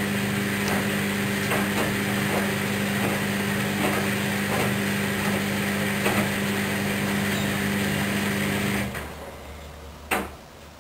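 Hoover washing machine motor running steadily during a wool-cycle rinse, a steady hum with faint knocks. The motor cuts off about nine seconds in, followed a second later by a single sharp click.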